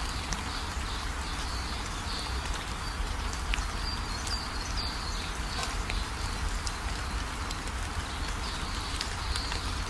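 Steady background hiss with a low hum, and faint, short high chirps repeating every second or so.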